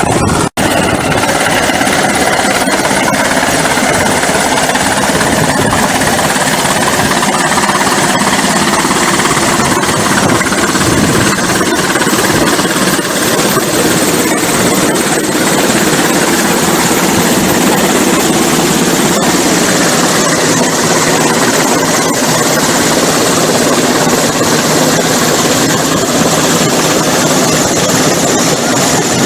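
Rescue helicopter hovering close overhead: loud, steady rotor and turbine engine noise, with a momentary break about half a second in.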